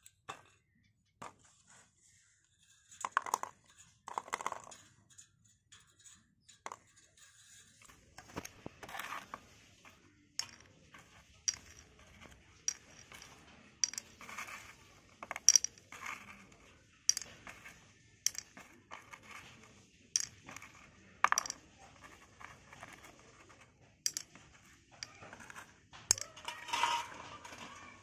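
Light metallic clinks and taps of hand tools against small bicycle hub parts. A few scattered clicks at first, then roughly one sharp clink a second.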